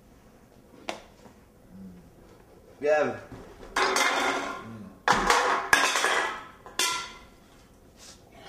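Aluminium beer cans clattering as they are knocked over and pushed around on a wooden coffee table, in three bursts of rattling.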